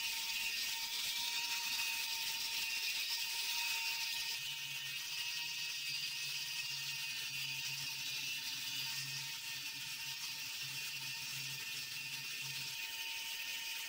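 Steady whir of a small motor-driven tool with a high hiss and a thin steady whine; a low hum joins about four and a half seconds in and drops out near the end.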